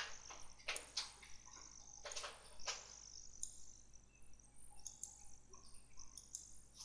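Faint room tone: a steady low hum with scattered short, faint chirps or clicks.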